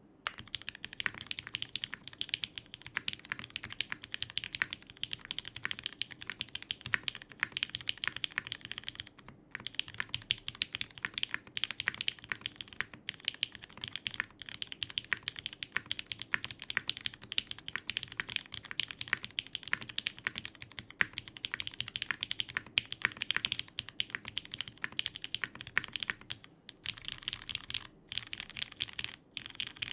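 Continuous fast typing on a Geonworks F2-84 mechanical keyboard with lubed, filmed, spring-swapped Cherry MX Hyperglide Black linear switches, an aluminium plate and GMK keycaps. The keystrokes come in a dense stream of clacks, with a few brief pauses.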